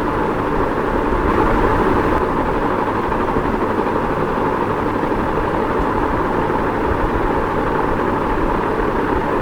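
Ceiling fan running steadily: an even, unbroken whoosh of moving air.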